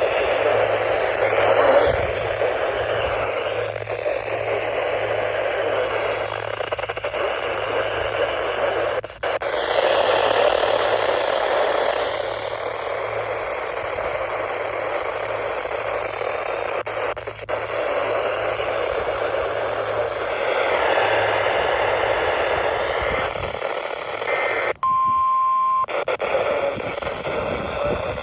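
NOAA Weather Radio reception full of static hiss with a low hum, from a weak station. Near the end, tones rise out of the noise, and then a clean, steady high beep sounds for about a second while the static cuts out.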